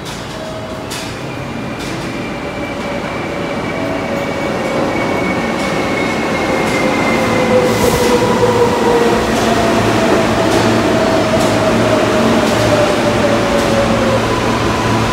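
New York City subway train pulling into a station, growing louder as it nears. Its electric motors give a whine that falls slowly in pitch as the train brakes, over the rumble and clicking of wheels on the rails.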